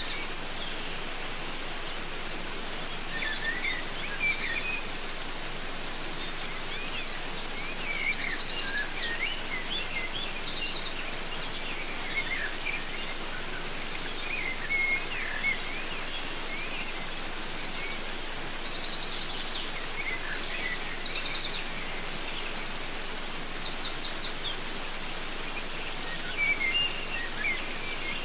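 Waterfall rushing steadily, with several birds calling over it: scattered short chirps and whistles throughout, and bursts of rapid high trills about a third of the way in and again past the middle.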